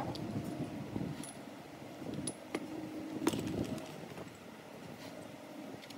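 Scattered light metallic clinks and taps as the clutch assembly of a 100cc motorcycle engine is handled and fitted onto the crankcase shaft, over a low background rumble.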